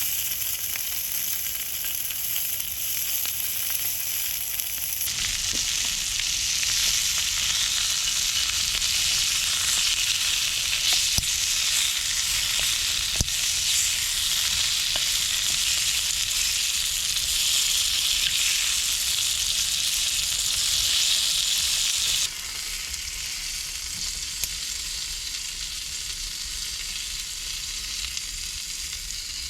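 Food sizzling in a frying pan: a steady frying hiss with small scattered pops. It gets louder about five seconds in and drops back abruptly later on.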